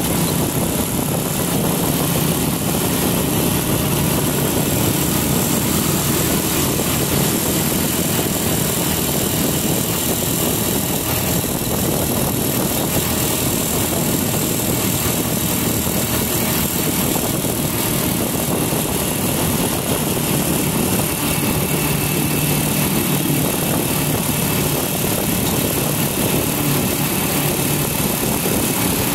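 Motorcycle running at a steady cruising speed. A low engine hum sits under a constant rush of wind and road noise.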